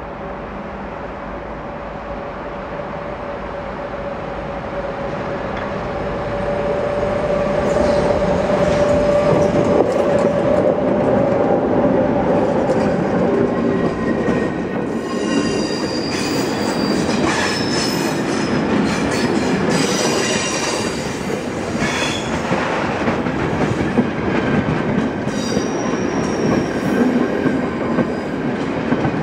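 Green Cargo electric locomotive approaching and passing with a steady whine, growing louder. It is followed by its freight wagons rolling by close up, the wheels clattering and squealing in high thin tones.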